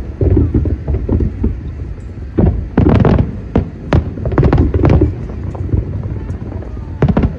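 Aerial fireworks bursting overhead: a rapid series of deep booms, thickest from about two to five seconds in, with a steady low rumble between them.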